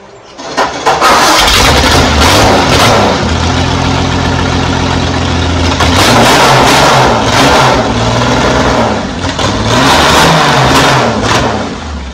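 Hudson straight-six race engine, running through open exhaust headers, catching about half a second in and running loud. It is revved up and back down three times, and drops off near the end.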